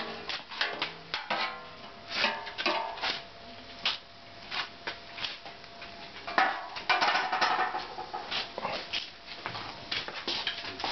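Irregular clicks, clinks and knocks of metal fire tongs and pots at a small coal stove, with a couple of short pitched calls about a second in and again about seven seconds in.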